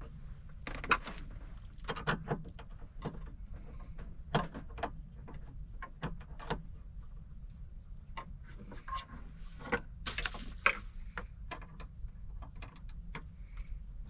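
Scattered clicks and light knocks of hand work connecting the negative cable of a solar power kit, with a steady low rumble underneath.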